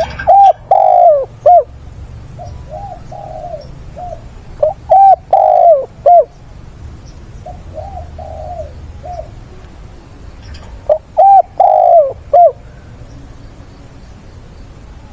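Spotted dove cooing close by: three loud phrases of a short note, a longer note and a short note, a few seconds apart, with quieter coos between them.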